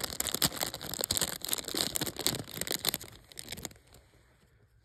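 Thin clear plastic bag crinkling and rustling in the hands as a stone is worked out of it; it stops about three-quarters of the way through.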